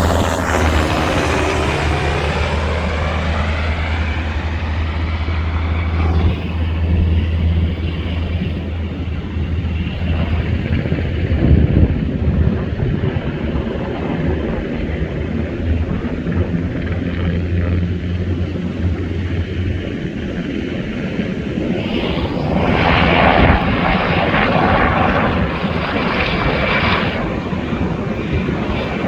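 Black Hawk helicopter passing low overhead, its rotor making a steady low beating hum with the pitch sweeping as it goes by, which fades away after about twenty seconds. A rushing noise follows near the end.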